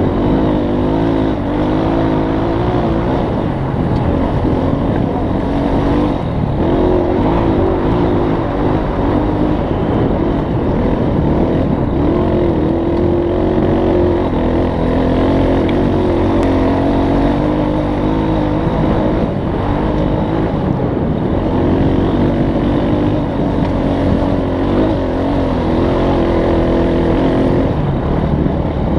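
Off-road vehicle engine running under way, its pitch rising and falling every few seconds with the throttle.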